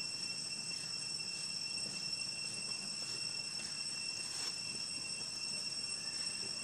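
Steady high-pitched insect drone, several shrill tones held unbroken at an even level.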